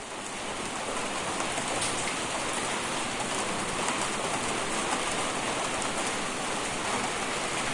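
Steady falling rain, fading in over the first second, used as the song's intro.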